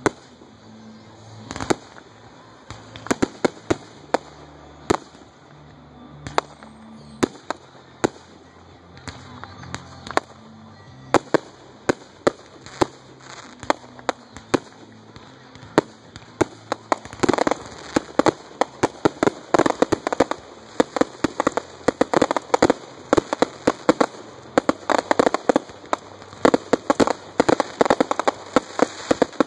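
Aerial fireworks going off: scattered sharp bangs of bursting shells at first, then, from a little past halfway, a dense barrage of rapid bangs and crackles.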